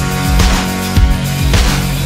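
Background music with a strong drum beat, about two beats a second.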